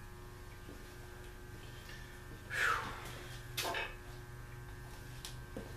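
Steady electrical hum in the workshop, with a short scrape falling in pitch about two and a half seconds in and a sharp knock a second later as parts of a disassembled Packard V8 engine are handled.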